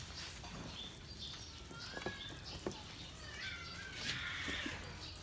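Small birds chirping faintly, short high chirps repeating throughout, with a few longer sliding calls in the middle.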